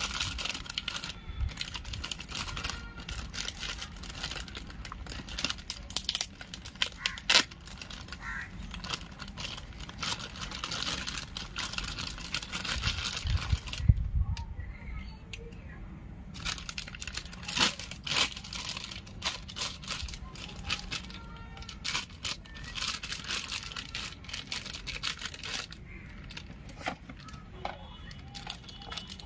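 Thin clear plastic packaging bag crinkling and rustling under the hands, with many sharp irregular crackles; briefly quieter about halfway through.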